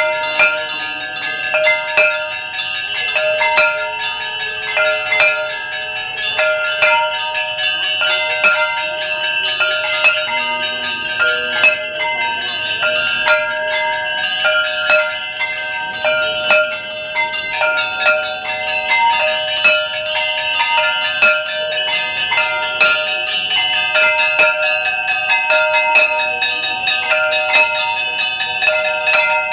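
Temple bells ringing continuously in rapid, dense strikes during aarti worship, their ringing tones overlapping without a break.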